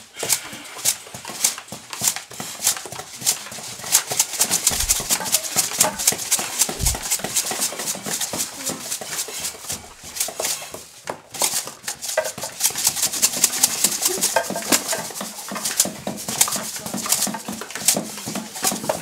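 Homemade percussion instruments made from recycled materials clattering and clicking in quick, uneven taps, played as a machine-sound effect. There are two low thuds about five and seven seconds in, and a short lull a little past the middle.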